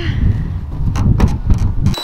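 Wind rumbling on the microphone, with a few light knocks and taps scattered through it.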